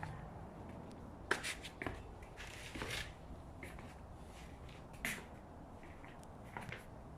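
Handling noise: a few soft, scattered clicks and knocks, with a short rustle about two and a half seconds in, over a low background hum.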